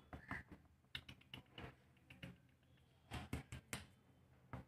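Faint, scattered light clicks and taps, bunched in quick runs about a second in and again a little after three seconds: puppies' claws and paws on a concrete floor. A faint steady low hum lies underneath.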